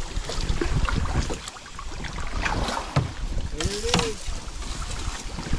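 Kayak paddle strokes dipping and splashing in shallow river water as the boat moves through a narrow channel, with wind rumbling on the microphone. A short rising-and-falling call sounds about two-thirds of the way through.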